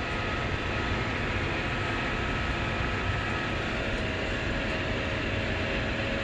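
Tractor engine running steadily under load while pulling a plough, with a faint steady whine over it.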